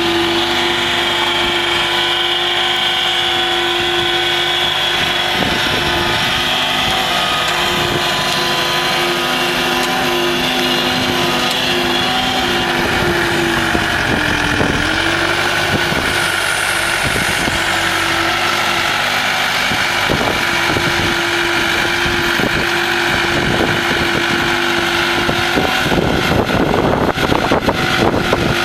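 Skid-steer loader engine running steadily at high speed, its pitch sagging briefly about halfway through. Near the end the steady tone gives way to a rougher, noisier sound.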